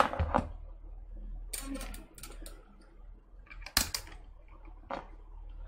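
Scattered clicks and knocks of a multimeter and tools being picked up and handled on a workbench, with one sharp click a little under four seconds in.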